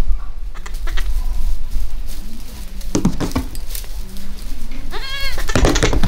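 A young goat bleats once, briefly, about five seconds in, among scattered knocks and rustling from kids moving around a plastic feed tub.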